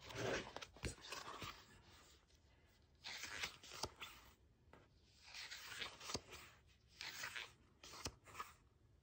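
Pages of a thick photo book being turned by hand: paper rustling and flapping with sharp snaps as each page falls, in about five separate turns.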